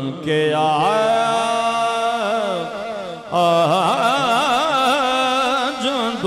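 Male voice singing a Punjabi naat without instruments, holding long wordless notes. It slides up into the first note, and just after three seconds a second note begins with a strong waver.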